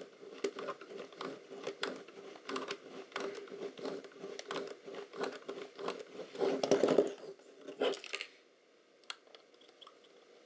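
Needle-nose pliers clicking and scraping against the metal lens ring of a Lomo LC-A camera as a stubborn part is worked loose a little at a time. It is a dense run of small clicks and rasps, busiest just before the end, and it stops at about eight seconds, leaving only a few faint ticks.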